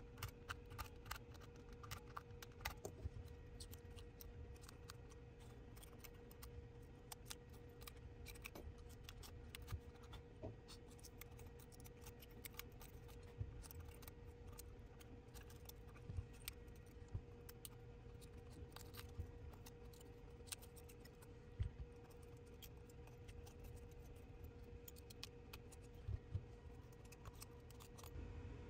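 Irregular small clicks, ticks and scrapes of a metal pick chipping and prying broken back-glass shards off an iPhone 12 Pro Max's frame, with shards tinkling onto the mat. A faint steady hum runs underneath.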